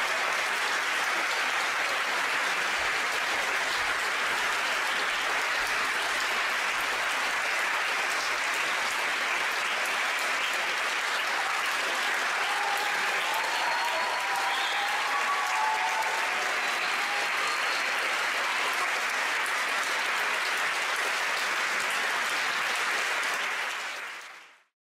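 Concert audience applauding steadily, with a few voices calling out briefly midway; the applause fades out just before the end.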